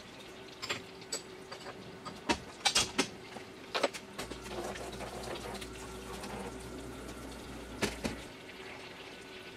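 Flood coolant spraying and splashing inside a Tormach 440 CNC mill's enclosure during aluminium milling, with a faint steady tone under the hiss. Scattered sharp ticks of aluminium chips and spray hitting the guards come mostly in the first four seconds and once near the end, and a low hum sits under the hiss through the middle.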